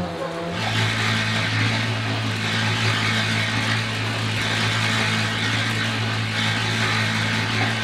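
Portable cement mixer running steadily: a constant motor hum with an even noise from the turning drum over it.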